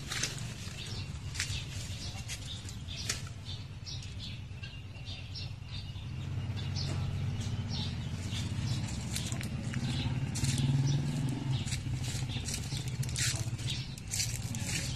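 Leaves and twigs rustling and crackling close to the microphone in short scattered clicks, over a steady low hum that swells in the middle.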